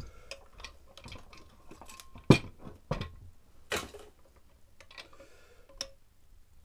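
Metal parts of a stripped small four-stroke engine knocking and clicking as they are handled, the piston on its connecting rod moving in the split crankcase. A few scattered clicks, the loudest knock a little over two seconds in.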